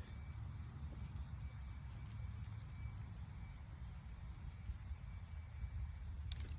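Steady high-pitched insect trilling, made of fine rapid pulses, with a low rumble underneath.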